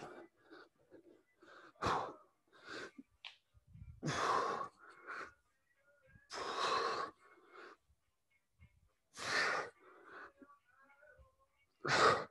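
A man breathing hard with forceful exhales, about one every two to three seconds, the longest lasting about a second: the effort of a set of heavy squats.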